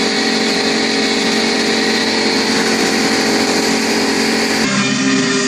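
A machine motor running steadily, a hum of several pitches under a strong hiss. About four and a half seconds in, the sound changes abruptly to a duller, lower hum.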